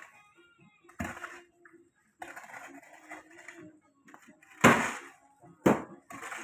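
Irregular knocks and thumps. The loudest is a sharp bang about four and a half seconds in, with another about a second later and a lighter knock near the start, and scraping or rustling noise in between.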